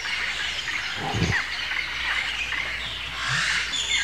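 Red deer stag giving a short, low call about a second in, with birds chirping in the background.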